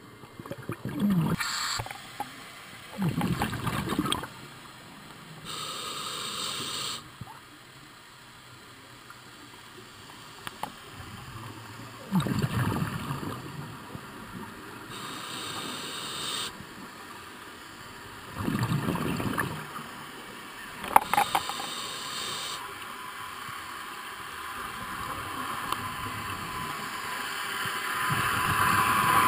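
Scuba regulator breathing underwater, heard over several breaths: a hiss on each inhalation alternating with a gurgling rush of exhaled bubbles every few seconds. A rushing noise builds near the end.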